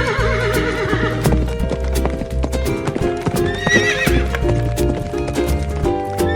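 Cheerful background music with a steady clip-clop beat. A wavering, falling animal call comes in the first second, and a shorter one about four seconds in.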